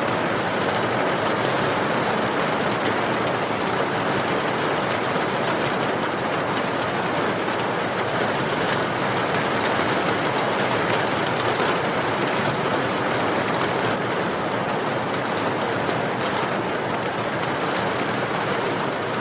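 Steady rain with a crackling wood fire: an even hiss of rain with scattered small snaps from the burning logs.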